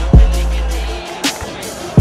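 Background music with a steady beat: deep bass notes that hold for most of a second, and a sharp snare-like hit about a second in.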